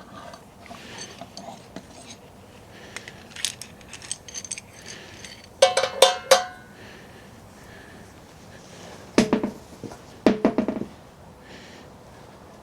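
Metal parts clinking and clanking during hand work on a motorcycle's rear wheel and chain. A quick cluster of sharp, ringing clinks comes about halfway through, then two short runs of heavier clanks in the second half.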